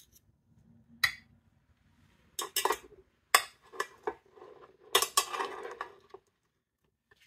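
Kitchen utensils knocking and scraping against a metal baking tin and slate board. There are separate clinks with a short metallic ring, a light one about a second in, then louder clusters about two and a half, three and a half and five seconds in.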